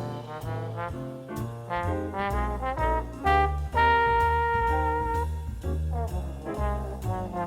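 Background music: an upbeat jazzy brass tune with trombone and trumpet over a steady bass, with one long held note in the middle.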